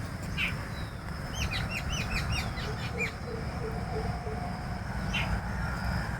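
Small birds chirping: single chirps near the start and end, and a quick run of short chirps in the middle, over a steady low rumble.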